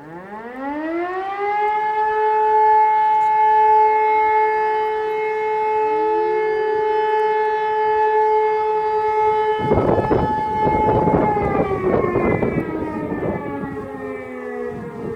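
Fire brigade alarm siren sounding a test alarm: it winds up from a low pitch to a steady chord of two tones within about two seconds, holds, and begins to wind down slowly about eleven seconds in. A burst of rumbling noise lies over it from about ten to thirteen seconds in.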